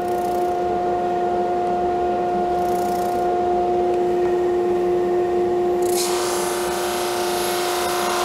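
Single-ended drum sander running with a steady hum. About six seconds in, a louder rasping hiss begins as a hardwood veneer piece feeds under the sanding drum.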